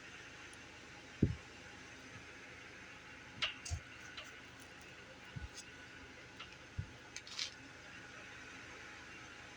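A few soft, short thumps and light clicks scattered over a steady background hiss, the loudest thump about a second in.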